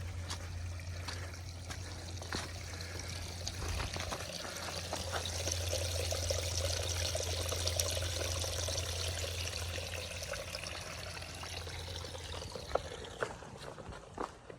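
Running water of a small trickling stream, growing louder toward the middle and fading out about twelve seconds in, with faint footstep clicks now and then.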